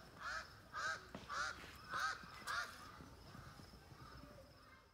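A bird calling: five short calls that rise and fall in pitch, about half a second apart, then stopping.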